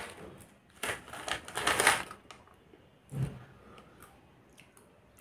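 A small plastic snack packet crinkling as it is torn open and handled, for about a second starting a second in, followed a little after 3 s by a short dull sound.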